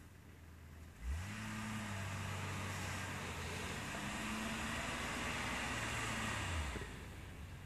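Jeep Cherokee engine revving up about a second in and held high and steady while it ploughs through deep snow, with the tyres churning snow; the revs drop away near the end.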